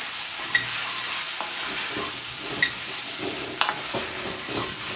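Mushrooms, onions and freshly added tomatoes sizzling in a hot enamelled pot while a wooden spoon stirs and scrapes the base, the tomatoes lifting the browned spices off the bottom. A few short sharp knocks sound over the steady sizzle.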